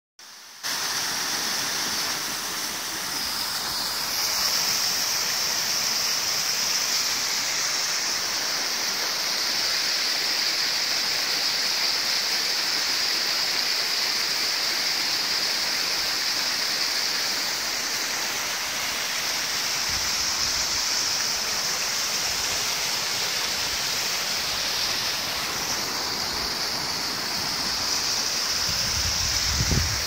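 Steady rush of water from a small waterfall cascading down rocks into a rocky creek running over rapids.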